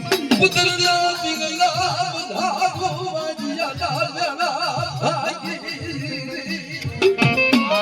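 Devotional folk song: a voice singing long, wavering, ornamented notes over instrumental accompaniment, with quick drum strokes at the start and again near the end.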